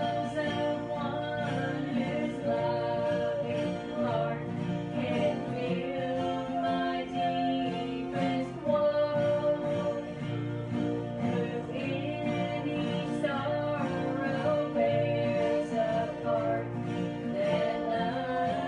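Small group singing a gospel hymn in mixed voices, accompanied by strummed acoustic guitars.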